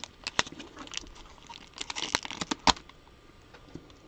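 Trading cards being handled and flipped through: short paper rustles and light sharp clicks at irregular moments, the sharpest just before three seconds in.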